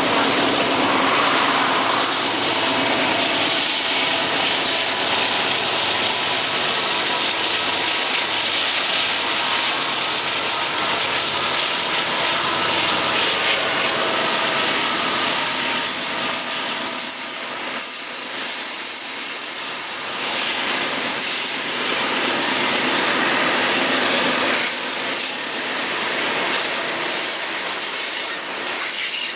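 Canadian Pacific freight train passing close by: the diesel locomotives running as they go past, then the steel wheels of the coal hopper cars rolling on the curving track, a steady noise that eases a little past the middle.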